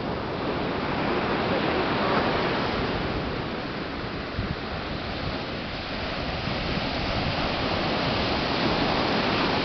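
Sea surf breaking on a sandy beach: a steady wash of noise that swells, eases off, and swells again.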